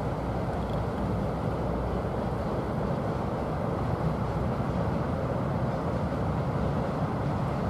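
Freight train hauled by a VL10U DC electric locomotive running past, a steady low rumble of wheels on rail.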